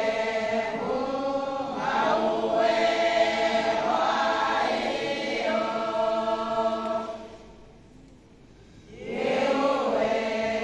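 Women's choir singing a praise song with long held notes. The singing breaks off about seven seconds in and starts again about a second and a half later.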